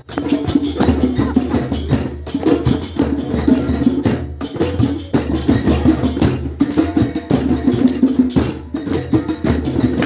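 Several djembe hand drums played together in a quick, steady rhythm.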